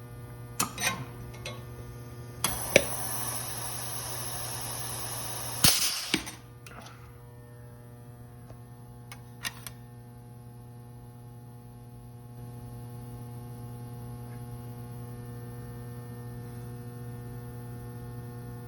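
Pneumatic hot dimpling squeezer cycling: a few sharp clicks, then about three seconds of steady air hiss as the press goes to its higher pressure for the dimple, ending in a sharp click and a short rush of air. A steady electrical hum runs underneath.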